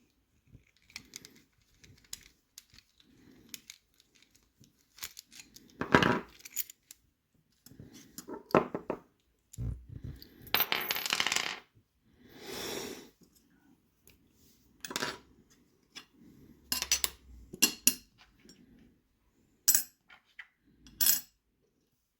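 Small metal clicks and clinks from a padlock and lock-picking tools being handled, with several louder clinks scattered through and a brief scrape about two-thirds of the way through.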